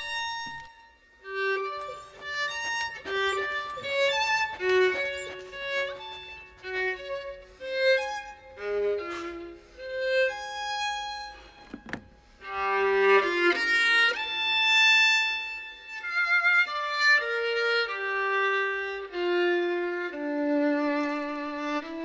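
Background music from a film score: a violin playing a melody, with short changing notes at first and longer held notes with vibrato in the second half.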